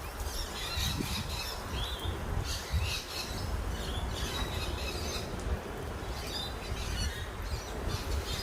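Small birds chirping and calling in short, scattered notes over a steady low rumble.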